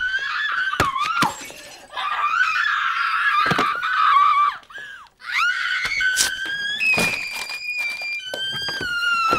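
A person screaming in long, high-pitched held stretches, with a short break about five seconds in, over repeated knocks and crashes of things being thrown and rummaged about.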